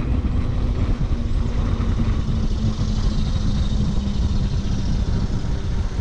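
Steady low rumble of wind and road noise with a constant low hum from a 72-volt electric bike still rolling after a speed run.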